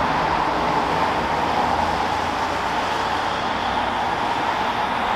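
Steady hum of road traffic on the course below, with no single vehicle standing out.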